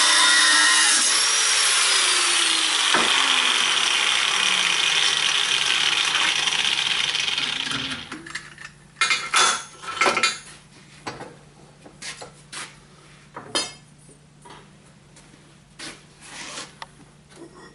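Power grinder grinding steel, a loud steady hiss whose pitch sags under load, stopping about eight seconds in. Then comes a series of sharp metal clinks and taps as the small steel hinge pieces are handled and fitted.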